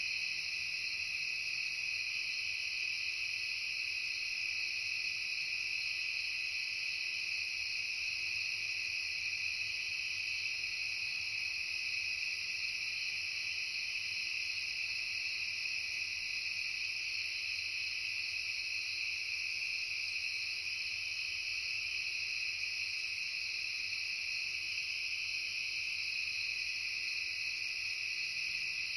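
Dense, steady chorus of crickets and other insects chirping at several pitches at once, with no break or change.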